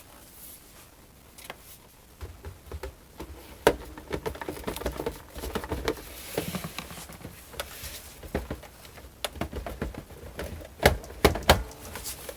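Irregular plastic clicks, taps and rustling as hands work a 1987 boombox's detachable speaker and locking catch, trying to fit it back on the cabinet; a few sharper clicks come near the end.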